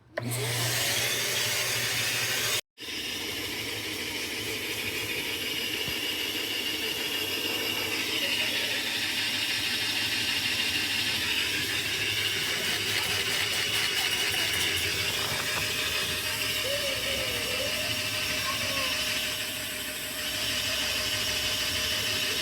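Steady hissing and whining rush of air during an exhaust leak test on a Mazdaspeed 3's exhaust system, cut off once briefly about three seconds in.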